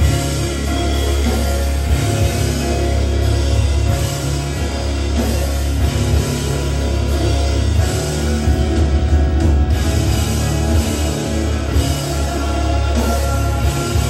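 Loud rock music with a drum kit and heavy bass, playing steadily.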